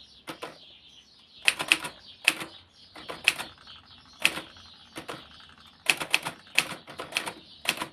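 1959 Imperial Good Companion 5 portable typewriter being typed slowly: about sixteen sharp, irregular key strikes, some in quick groups of two or three, with the space bar pressed among them. The typing shows the machine skipping letters, a fault of the escapement trip point's adjustment.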